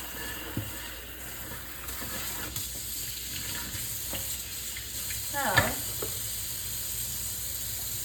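Dishes being washed at a kitchen sink: a steady hiss with a few light clicks, and one louder, brief pitched sound about five and a half seconds in.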